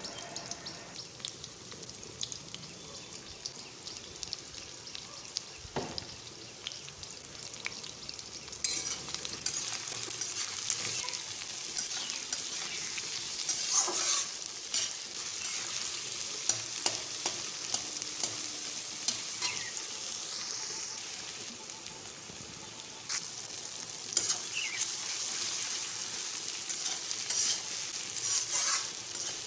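Sliced onions sizzling in hot mustard oil in a metal kadai over a high gas flame, stirred with a steel spatula that scrapes and knocks against the pan now and then. The sizzle grows louder about a third of the way in.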